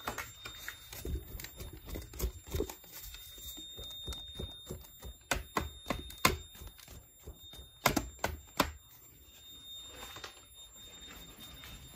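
Irregular light clicks and knocks from handling an aerosol smoke-test can while it is held up to a ceiling smoke detector. Two sharper knocks come about eight seconds in.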